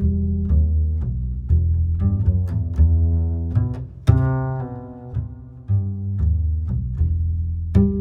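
Background music of low strings, cello- and double-bass-like, bowed and plucked in a series of separate notes over a sustained low bass.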